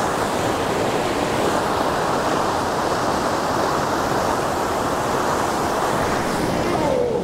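Loud, steady rush of white water from a nearby river waterfall, an even hiss with no breaks.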